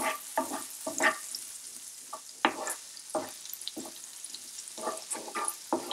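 Chopped garlic sizzling in melted butter in a nonstick frying pan, stirred with a wooden spoon. The faint steady frying hiss is broken by a dozen or so short, irregular scrapes of the spoon across the pan.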